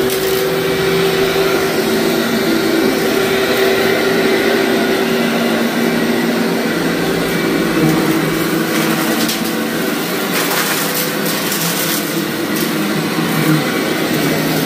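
Vacuum cleaner running steadily over a heavily soiled carpet, its motor hum shifting in pitch as it is pushed, with crunching crackles as it sucks up grit and debris, most marked a little past the middle.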